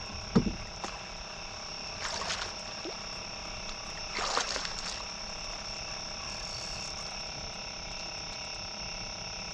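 Steady night-time chorus of insects and frogs, many unchanging pitches with the strongest a high, thin whine. A short low thump comes just under half a second in, and two brief noisy bursts at about two and four seconds.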